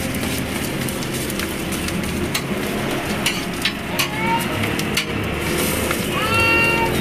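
Egg-coated shami kababs sizzling in oil on a flat steel griddle, with a metal spatula clicking and scraping against the steel as they are pressed and turned. A rising tone that then holds steady sounds briefly about four seconds in and again, louder, near the end.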